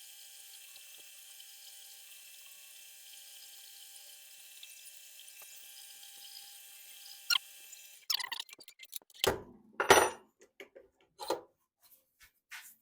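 Small metal lathe running with a faint steady hum and hiss while drilling aluminium, cutting off abruptly about two-thirds through. It is followed by a run of irregular knocks and clatters, two of them loud.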